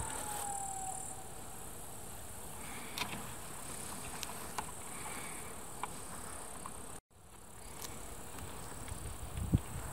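Insects chirring in a grassy field, with a few faint clicks from hands working at a model-plane engine that will not start. A high whine falls in pitch and stops about a second in.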